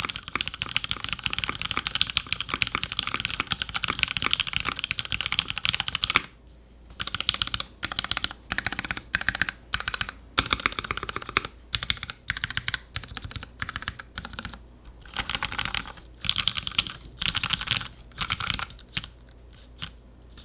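Typing on a custom 60% mechanical keyboard with lubed and filmed Hyperglide Cherry MX Black linear switches on a full polypropylene/nylon plate, under GMK keycaps. The keystrokes are fast and continuous for about six seconds, then come in short bursts with brief pauses between them.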